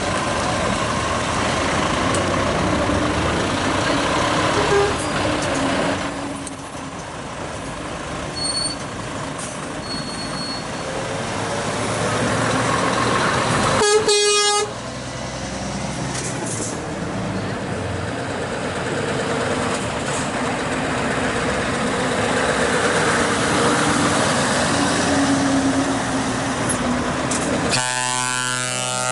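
Heavy trucks rolling past in a slow convoy: diesel engines running and tyres on the road. About halfway through there is one short air-horn blast. Near the end a steady, even tone starts up.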